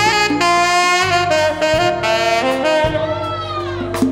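Tenor saxophone soloing over a live rock band's drums, bass and guitar, heard as a soundboard mix. The sax holds long notes and, about three seconds in, bends one up and back down.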